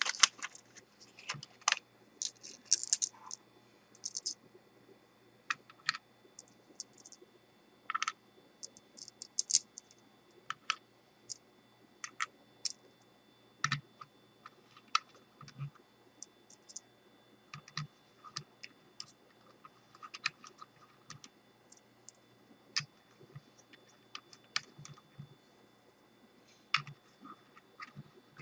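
Irregular small clicks and taps, single or in short clusters with pauses between, as flashlight bulbs and craft-bead caps are fitted into a wooden switch box.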